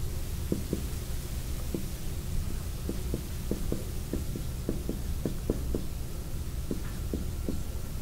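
Marker writing on a whiteboard: a string of short, irregular taps as the strokes are made, over a steady low room hum.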